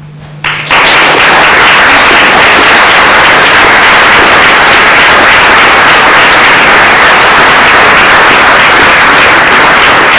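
Audience applauding loudly, a dense mass of many hands clapping that breaks out under a second in and keeps on steadily.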